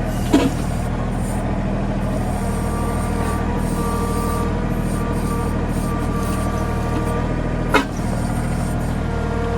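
Mahindra 1626 compact tractor's diesel engine running steadily under backhoe work, with higher whining tones that come and go. Two sharp knocks, one just after the start and one near the end.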